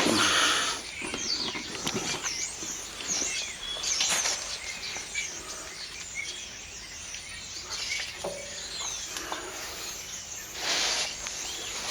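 Small birds chirping and twittering, with a brief scuffing, handling noise at the start and another near the end.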